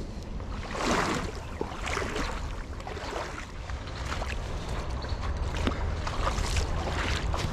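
Footsteps at a walking pace, about one a second, over a steady low rumble.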